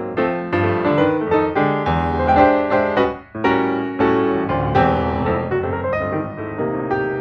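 Background piano music: a steady run of struck notes with chords underneath.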